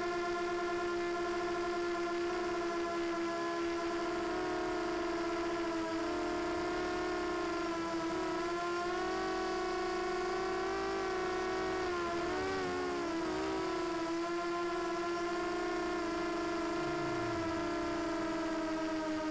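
QAV250 mini quadcopter's brushless motors and propellers in flight, heard from its onboard camera: a steady high whine whose pitch drifts a little and wobbles briefly up and down about twelve seconds in.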